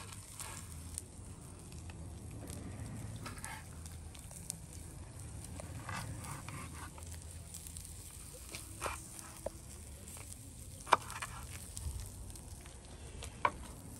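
A cleaver knocking on a wooden cutting board: a few irregular sharp knocks, the loudest about eleven seconds in, over a low steady rumble.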